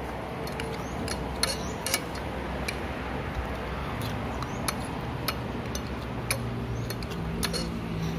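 Metal spoon and fork clinking and scraping against a ceramic plate in scattered, irregular clicks. A low engine hum comes in about halfway through.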